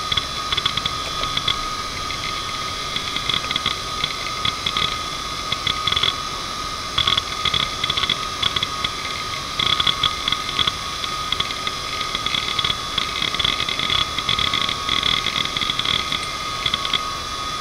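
Toshiba MK2326FC three-platter 2.5-inch hard drive running, its spindle giving a steady high whine while the heads seek in irregular bursts of rapid clicking chatter as Windows 95 loads from it. The seeking is busiest in the second half.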